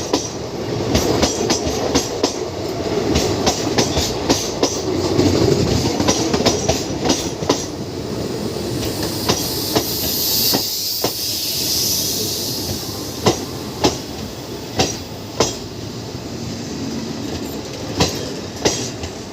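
Visakha Express passenger train running on the rails: a steady rumble with sharp wheel clicks over the rail joints. The clicks come thick and fast at first, then further apart in the second half, with a high hiss near the middle.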